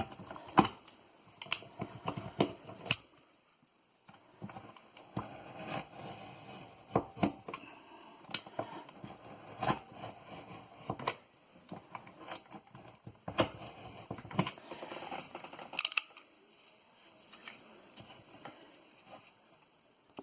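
Hand tools working wood: scattered, irregular clicks and knocks with short pauses, as the tongue is cut off the siding so the block sits flush.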